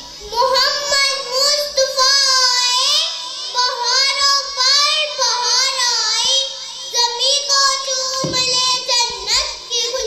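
A young girl's voice reciting in a melodic, sung chant into a microphone, with long held notes and gliding pitch.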